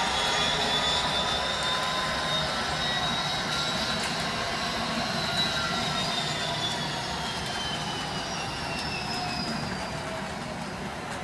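H0-scale model train running: a whine that rises slightly and then falls, over a steady rumble, growing a little quieter toward the end.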